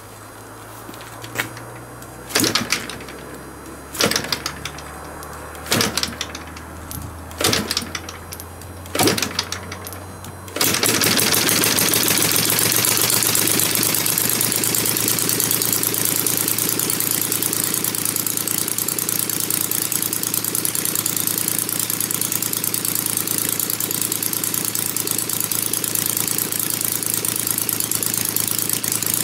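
A 150cc three-cylinder inline petrol engine in a large RC P-51 Mustang model being cranked over with a low hum, firing in six short bursts about every one and a half seconds without catching. About ten seconds in it catches and runs steadily.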